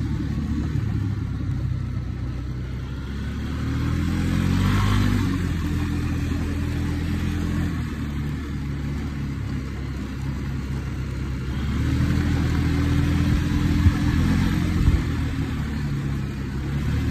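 Polaris Sportsman ATV engine running while riding, rising in pitch as it speeds up about four seconds in and again around twelve seconds, then easing back. Two sharp knocks a second apart come late on.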